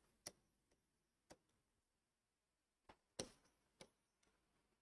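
Near silence with a handful of faint, sharp ticks, a marker pen tapping and stroking against a whiteboard while writing.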